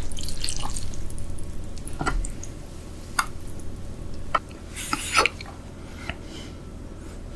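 Close-miked mukbang eating sounds: a few short, wet clicks and smacks of someone starting to eat, spaced about a second apart.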